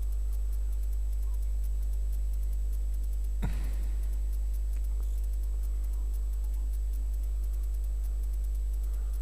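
A steady low electrical hum with a buzz above it, and one short knock about three and a half seconds in.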